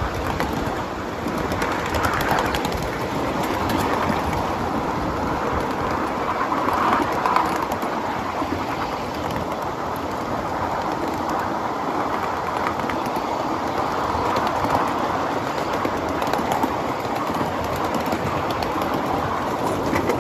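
Cars of a 7.5-inch gauge ride-on train rolling along the track, heard from the rear car: a steady rumble of steel wheels on rail with light clicks.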